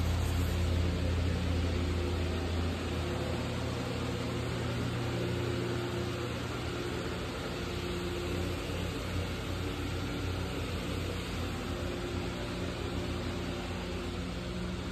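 Steady low mechanical hum under a constant noisy hiss, with no distinct events.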